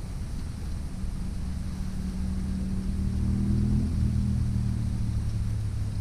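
An engine running at a steady pitch, coming up about a second in and loudest in the second half.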